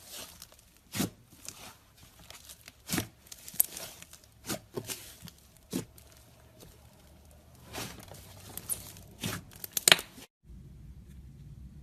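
Slime being worked by hand, giving irregular sharp crackling pops and crinkles. It cuts off abruptly about ten seconds in, and a low hum follows.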